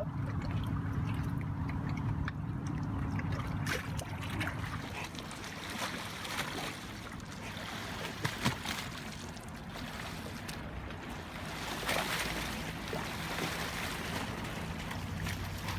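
A watercraft engine running with a steady low hum that fades after about four seconds, over a constant wash of water noise with a few small knocks.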